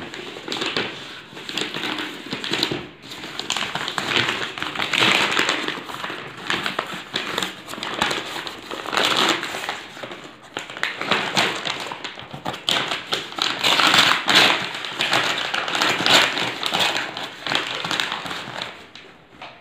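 Brown paper parcel wrapping being torn open and crumpled by hand, a continuous crackling, crinkling rustle with many sharp tearing clicks that stops near the end.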